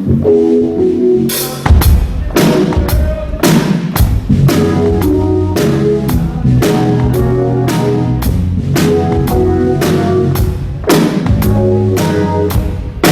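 A band playing a steady drum-kit groove, with bass drum, snare and cymbals, under sustained keyboard chords and a bass line.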